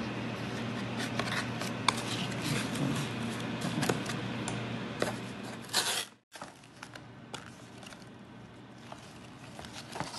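Packaging being handled: plastic wrap crinkling and cardboard and paper rustling, with scrapes and small clicks, busiest for about the first six seconds. After a brief cut-out the handling goes on much more quietly.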